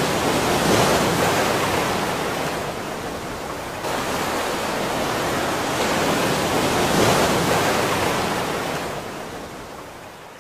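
Rushing water, a steady noise that swells twice, with a sudden jump in level about four seconds in, then fades out over the last couple of seconds.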